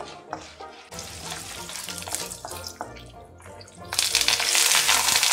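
Chana dal and urad dal frying gently in oil in an iron kadai, stirred with a wooden spatula; about four seconds in, a sudden loud sizzle as curry leaves and green chillies hit the hot oil.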